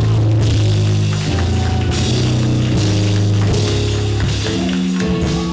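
Live band music with a drum kit and held low chords that change every second or so.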